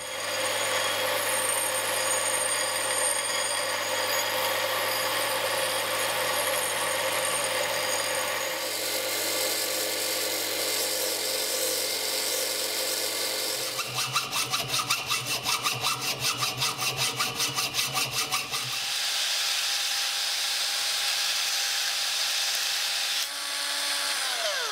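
Einhell belt grinder running while a brass rod is ground against its abrasive belt, a steady gritty grinding with a machine hum, pulsing rapidly for a few seconds in the middle. Near the end a motor winds down with a falling whine.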